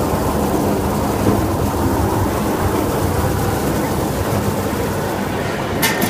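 Ginger washing machine running: water splashing onto ginger roots over a steady low machine rumble. A few sharp knocks come just before the end.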